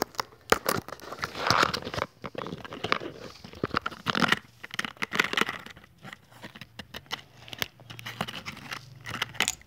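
Close rustling and crinkling with many scattered clicks and knocks, irregular throughout: things being handled right next to the microphone.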